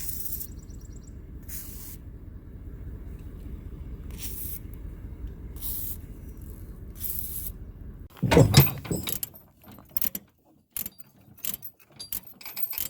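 A vehicle engine runs low and steady. About eight seconds in comes one heavy thump, and after that scattered clicks and rattles.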